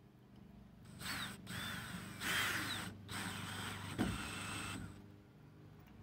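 Cordless drill/driver driving a screw into the flag holder's bracket, running in three short spurts with brief pauses between them, and a sharp knock about four seconds in.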